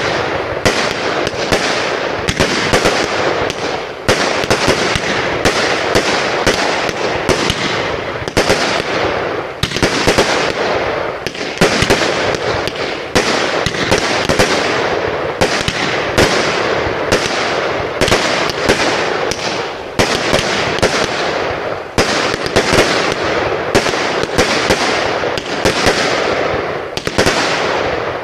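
Aerial fireworks going off in quick succession: a dense, continuous stream of sharp bangs and crackling, several a second, with louder shots every second or two.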